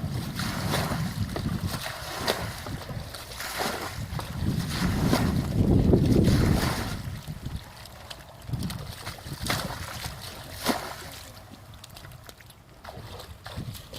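Wind buffeting the microphone over water, a rumble that is strongest in the first half, with a scattering of short sharp sounds.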